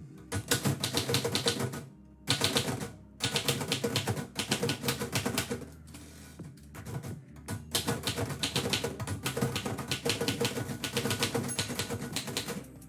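Typewriter keys clattering in quick runs of strikes, in four or so bursts with short pauses between them, the longest pause a little past the middle.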